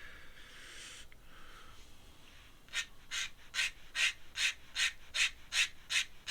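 Pen scratching across paper in quick, evenly repeated strokes, about two and a half a second, starting about three seconds in; a soft hiss of the pen comes before them.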